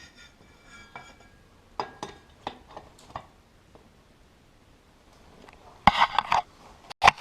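Clicks, knocks and clatter of metal and wood parts being handled while a ceiling fan is fitted to its mount. There is a faint metallic ring at the start, scattered clicks in the first few seconds, and a burst of louder knocking near the end.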